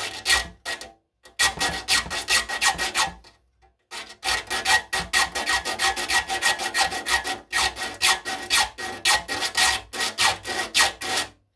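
A file rasping across a hand saw's teeth in quick short strokes, about four a second, sharpening each tooth to a point, with a steady high ringing note through the strokes. The filing stops briefly about a second in and again around three and a half seconds, then resumes.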